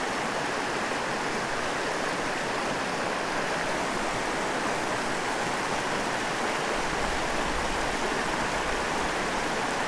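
Small rocky mountain stream running over a shallow riffle of stones, a steady rushing and gurgling of water.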